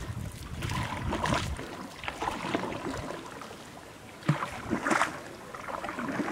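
Canoe moving on a river: paddle strokes splashing in the water, repeated about once a second. Wind buffets the microphone during the first couple of seconds.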